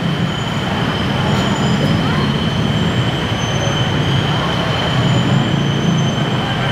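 Elevated BTS Skytrain running on the viaduct overhead: a steady high whine over a deep rumble, mixed with street traffic.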